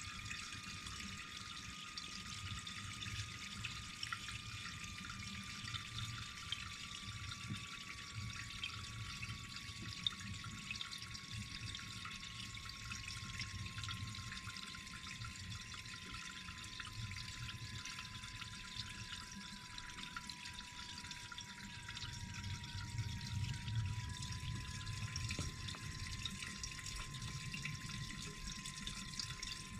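Diesel fuel pouring slowly from a jerry can's spout into a fuel tank, a steady trickle. A faint thin tone sinks slowly in pitch throughout. The flow is held back because the can's spout lets too little air in.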